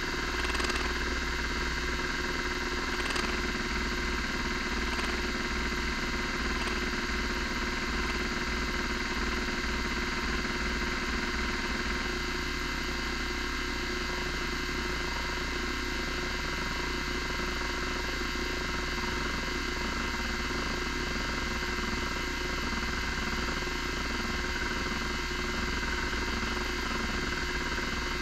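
Miniscribe 3425 MFM hard drive running: its spindle motor gives a loud, steady whine of several tones while the stepper motor moves the heads across the tracks during a bad-sector scan, with a few faint clicks in the first several seconds.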